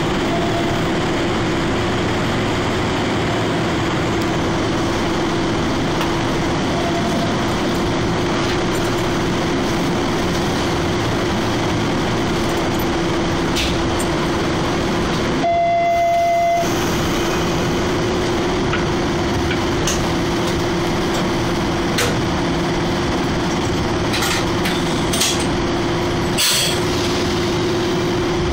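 Steady electrical hum of a stationary electric train heard inside the cab, with a constant low tone. About halfway through, a clear one-second tone sounds. A few short clicks follow near the end.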